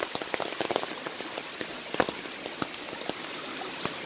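Rain falling steadily, with many separate heavy drops landing close by as sharp ticks over a constant hiss.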